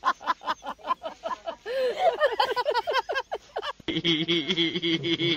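A person laughing in quick, evenly repeated bursts, the laugh stretching into longer rising and falling sounds. About four seconds in it cuts off and a steady hum takes over.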